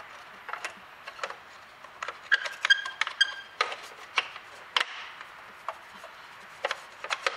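Pressed-metal turbo heat shield handled and fitted into place: scattered clanks and taps of metal against metal. A cluster of short ringing clinks comes about two to three seconds in.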